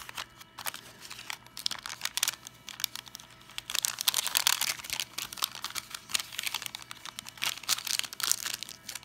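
Crinkling and crumpling of the opened paper wrapper of a 1983 Fleer baseball card pack as it is handled and squeezed in the hand, in irregular bursts, busiest about four seconds in and again near the end.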